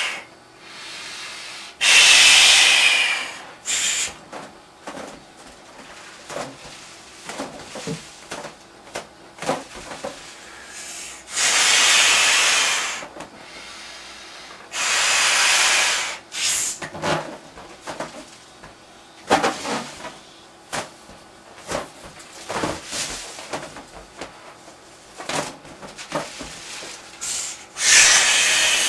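A large latex punchball balloon being blown up by mouth: long breathy blows into it, each lasting a second or so and several seconds apart, with rubbing and small knocks of hands on the stretched latex in between.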